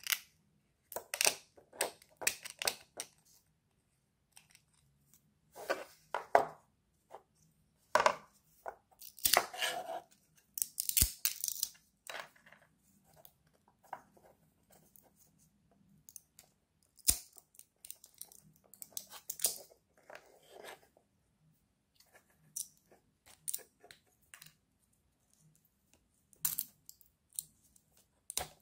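Support material being snapped, picked and scraped off 3D-printed plastic parts with a small blade: irregular crackling, scraping and clicking, with a couple of louder sharp snaps near the middle.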